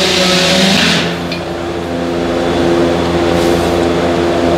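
A can of aerosol brake cleaner hisses as it is sprayed on the brake rotor, stopping about a second in. A steady mechanical hum, like an engine running, carries on underneath.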